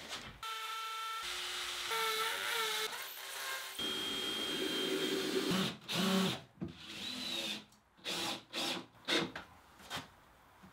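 Cordless drill running in several short whining runs, its pitch shifting from run to run, driving screws into wood. In the second half come several sharp knocks of boards being handled and fixed.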